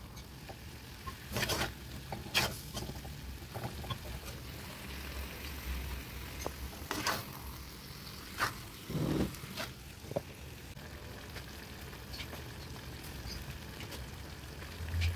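Steel spatula stirring and scraping beef roast in a clay pot, in a few separate strokes, over a low sizzle of the meat frying.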